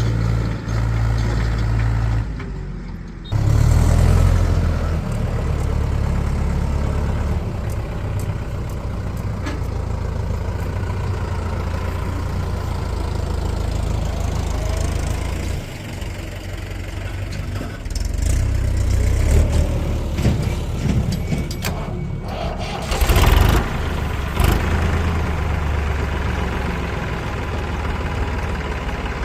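Heavy diesel engine of earth-moving machinery running steadily, dipping briefly about two seconds in and then picking up again. About three-quarters through come two short loud bangs.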